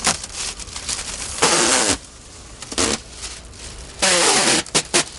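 Dark window tint film being ripped and peeled off a car's side window glass by hand, in several short tearing bursts with crinkling plastic between. The longest tears come about a second and a half in and again about four seconds in.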